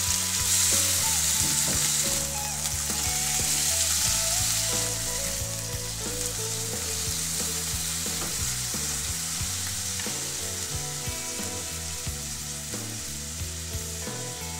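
Minced chicken and chopped onion sizzling in hot oil in a non-stick wok, stirred with a silicone spatula that scrapes and taps against the pan now and then. The sizzle eases off a little toward the end.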